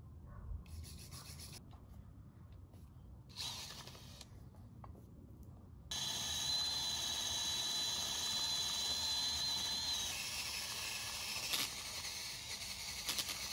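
A few short strokes of a steel wire brush scrubbed by hand over a rusty steel bar. About six seconds in, a DeWalt cordless drill fitted with a wire cup brush starts up and grinds off the rust, a loud steady scouring noise with a high whine running through it.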